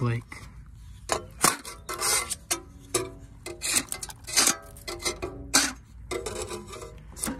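Putty-knife scraper scraping flaking bottom paint off a fibreglass sailboat hull, in repeated short strokes, some with a brief squeak.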